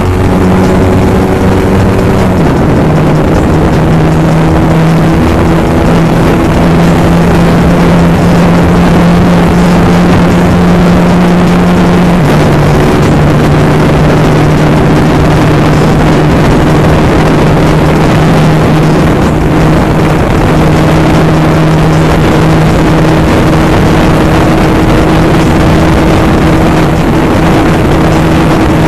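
Z200S sport bike's engine, fitted with a dual-outlet Akrapovic muffler and 51 mm stainless elbow, running hard at high revs on a full-throttle top-speed run, under a steady wind rush. The engine note steps down a little about two seconds in and again about twelve seconds in as it shifts up, then holds steady near top speed.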